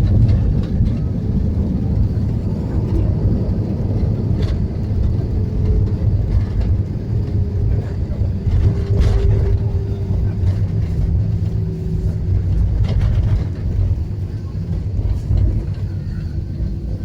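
Steady low rumble of an airliner, with a faint steady hum above it and a few light clicks.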